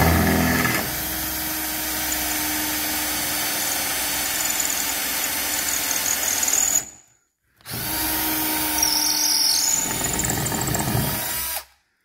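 Drill running under load as its bit drills out the rounded-off head of a door-hinge screw to free the hinge. Two runs, about seven seconds and then about four seconds, with a short stop between.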